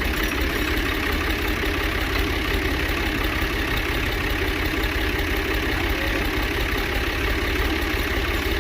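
Tractor engine and the wheat thresher it drives, running steadily while threshing.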